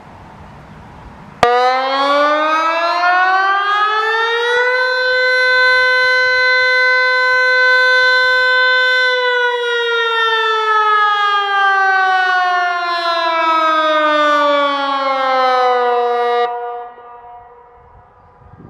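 Teho-Ulvo D1200 electronic civil-defence siren sounding a loud test tone. It starts suddenly and rises in pitch over about three seconds, holds one steady tone for about four seconds, then slowly falls for about seven seconds before cutting off and dying away in echo.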